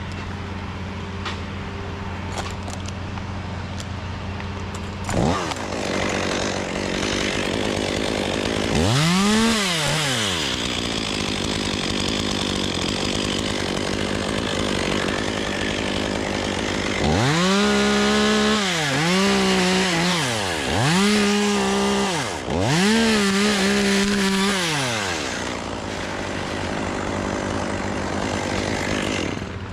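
Chainsaw idling, then revved up to a high, steady pitch in a series of bursts: once about a third of the way in, then four times close together past the middle, the pitch dropping between each. It settles back toward idle near the end.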